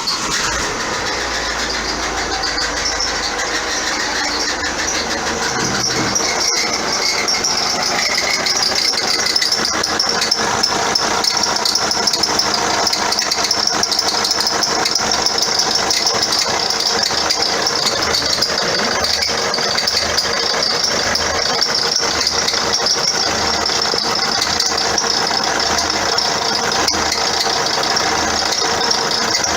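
Vauxhall Astra diesel engine idling just after starting, with the auxiliary drive belt squeaking over it. The squeak comes from the alternator pulley wandering up and down its shaft, which makes the belt chafe.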